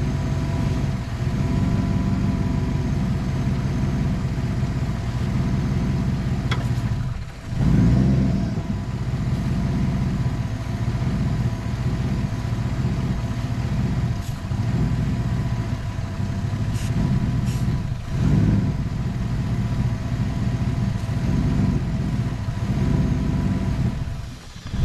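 Chevy Silverado's engine idling roughly while Seafoam spray is drawn into its intake. Twice, about seven seconds in and again near the end, the idle sags sharply as if about to stall, then surges back up: the engine is struggling with the Seafoam.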